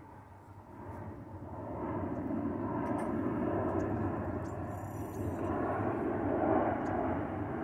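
Engine noise of something passing by swells for several seconds and fades near the end, with a few faint light clicks over it.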